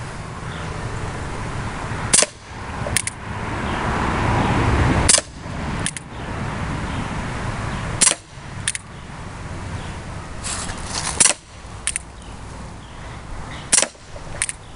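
Umarex Colt Single Action Army CO2 BB revolver firing five shots about three seconds apart, each a sharp pop of CO2, with a lighter click following each one.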